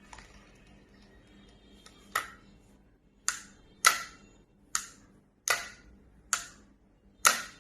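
Seven sharp snapping clicks, irregularly spaced from about two seconds in, from handling a Bullzen Gamer Blizzard 5000 spinning reel.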